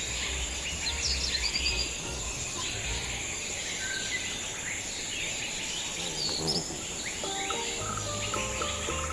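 Steady high insect buzz with birds chirping in short falling calls throughout. Soft music with plain stepped notes comes in near the end.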